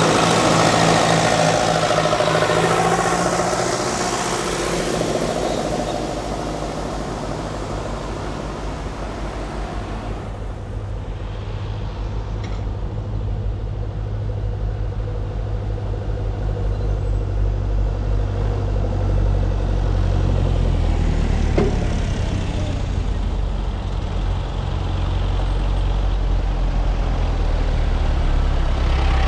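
Vintage farm tractor engines running as tractors drive along a road. A grey tractor's engine passes and fades over the first several seconds. Later another tractor engine approaches, its low hum growing louder toward the end.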